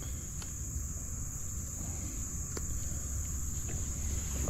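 Steady high-pitched insect chorus, like crickets, droning without a break, over a low rumble, with a couple of faint clicks.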